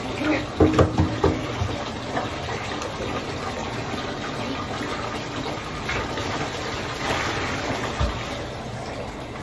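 Bathtub tap running, a steady stream of water pouring into the tub, with a few louder splashes or knocks about a second in.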